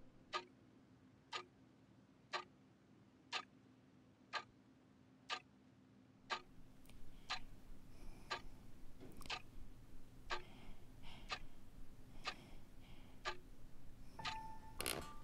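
Large mechanical clock ticking slowly and evenly, one tick a second. About six seconds in a low steady hum comes in beneath the ticks, and near the end a brief held tone and a louder click sound.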